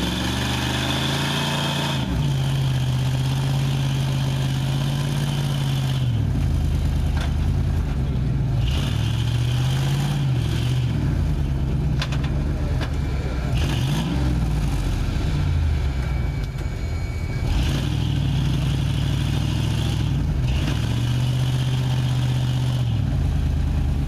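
Ford F-150 pickup's engine revving up and down over and over, holding high revs for a few seconds at a time, as the truck works to drive out of deep creek mud where it is stuck.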